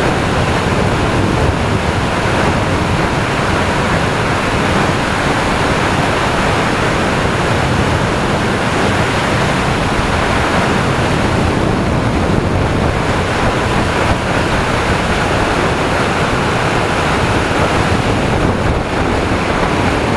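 Steady rush of wind on the microphone of an action camera mounted low on a motorcycle riding at road speed. No engine note stands out.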